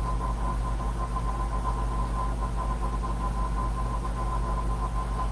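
Steady low hum and hiss with a thin, steady tone above it: continuous background noise, with no speech.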